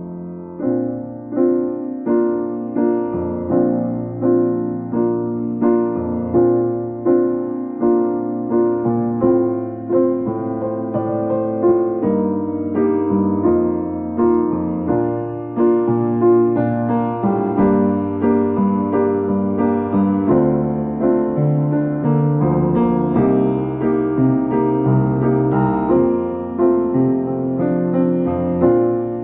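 Keyboard music in the sound of a piano or electric piano: a melody over chords and a bass line, with each note struck and then fading, in a steady rhythm. It is a section of a keyboard medley of chime tunes.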